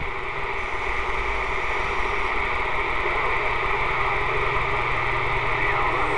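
Texas Ranger SSB CB radio receiving channel 6 during skip conditions, giving a steady hiss of static with a low hum underneath, between transmissions.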